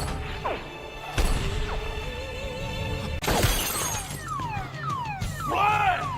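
Film soundtrack with music under it: a sharp hit about a second in, glass shattering a little after three seconds, then a run of quick falling electronic tones repeating about twice a second.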